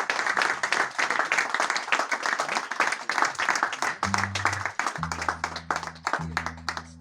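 Small audience applauding, the clapping thinning out; from about four seconds in, a few held low notes sound beneath it, one after another.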